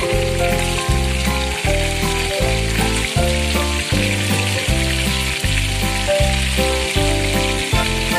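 Chicken wings sizzling steadily as they fry in hot oil in a nonstick wok, under background music with a steady bass line.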